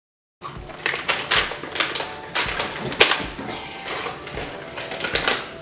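Crinkling and crackling of a plastic dog-treat pouch being handled and opened, a rapid, irregular run of small crackles and clicks that starts abruptly a moment in.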